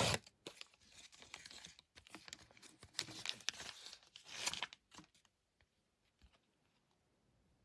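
A paper-like trading card pack being torn open and its wrapper crinkled and rustled, in scattered bursts for about five seconds, then stopping.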